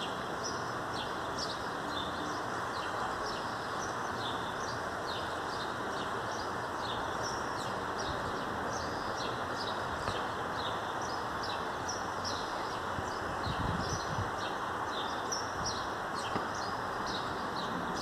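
Small birds chirping repeatedly over a steady rushing background noise, with a brief low rumble about two-thirds of the way through.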